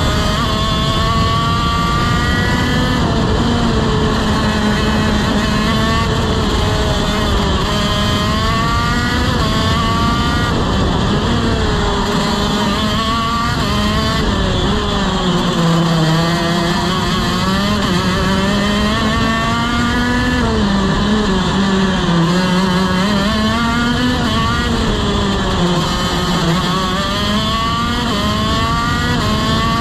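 TM KZ-R1 125cc two-stroke shifter kart engine at racing speed, its pitch climbing again and again and falling back as the kart accelerates and slows through the corners, with a steady rushing hiss over it.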